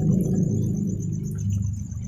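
Crickets trilling in a fast, even pulse, over a louder low drone.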